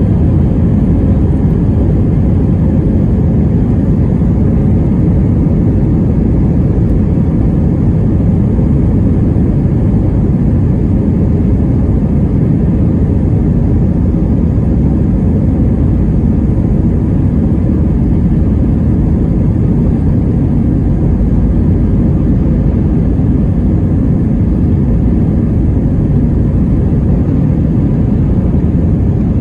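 Airliner's jet engines at takeoff thrust heard from inside the cabin over the wing, a loud, steady low rumble during the takeoff roll down the runway.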